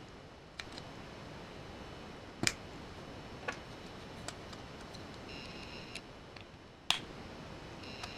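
Plastic Lego bricks being pressed and snapped together: sharp, short clicks every second or so, the loudest about two and a half and seven seconds in.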